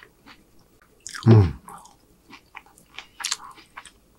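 Close-miked chewing of food, with wet mouth clicks and smacks, a short hummed sound falling in pitch about a second in, and a sharper crackly smack a little after three seconds.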